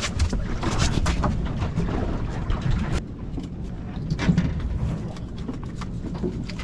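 Low, steady rumble of a fishing boat's engine with wind and water noise, and a few knocks and clicks on the boat. The sound changes abruptly about halfway through.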